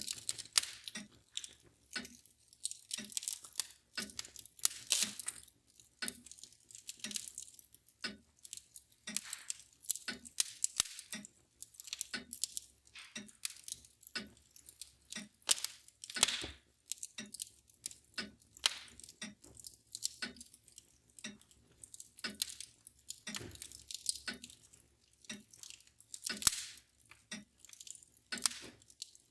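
Wood fire crackling and popping with irregular sharp snaps, while a mantel clock ticks steadily about once a second underneath.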